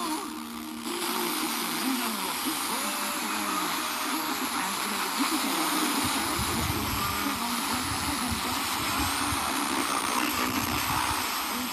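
FM radio receiver on a weak station: steady static hiss with faint programme audio barely showing through underneath. The hiss comes up about a second in, after a short quieter dip.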